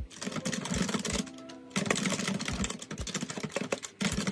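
Fast typing on a computer keyboard, a quick run of key clicks with a short pause a little over a second in, over soft background music.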